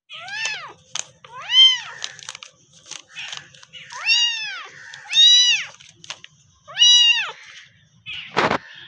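Cat meowing five times, each call rising then falling in pitch, with a short noisy burst near the end.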